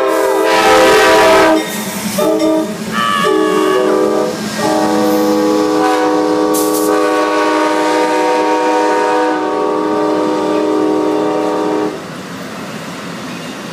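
Amtrak passenger locomotive's multi-note air horn sounding a horn sequence as the train passes: a blast, a few short ones, then one long held blast that cuts off near the end. The train's passing noise carries on after the horn stops.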